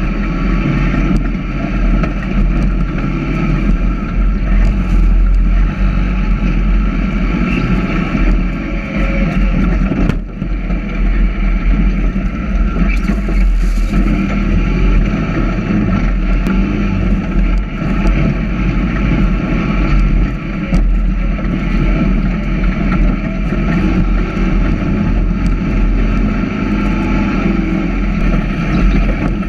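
Sand rail buggy's engine running hard and steady while the buggy drives across sand, with a brief drop in the engine sound about ten seconds in.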